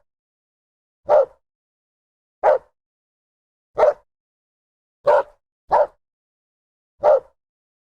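A dog barking: six single barks, about one every second and a half, with two coming close together a little past halfway, and silence between them.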